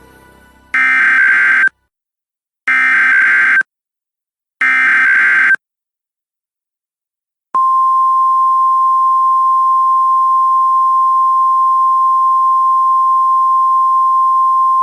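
Emergency Alert System weather alert: three one-second bursts of the buzzy SAME digital header, a second apart, then after a short pause a long, steady single-pitch attention tone. This heralds a tornado warning.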